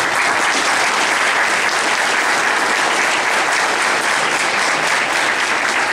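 Large audience applauding, a dense steady clapping that rises sharply at the start and begins to fade near the end.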